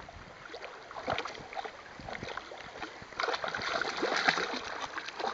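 Siberian husky pawing at the pebbly bottom of a shallow stream, water splashing and sloshing irregularly around her legs. The splashing picks up and gets louder about three seconds in.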